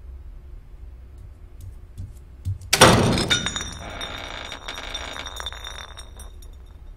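Milk bottle toppling onto a hard floor: a couple of light knocks, then a loud clattering crash about three seconds in, with a ringing clatter as it rolls that dies away about three seconds later.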